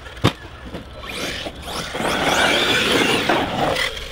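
ARRMA Kraton 6S V4 brushless RC truck being driven hard: a sharp knock about a quarter second in, then loud tyre and drivetrain noise from about halfway through.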